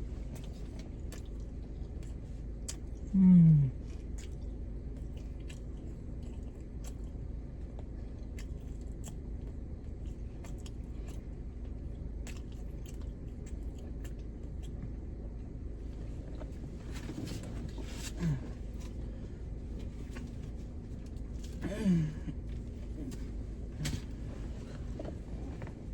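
A person chewing and biting food with many small wet clicks and smacks, over a steady low hum. A short, falling, hummed "mm" comes about three seconds in, and two fainter ones come later.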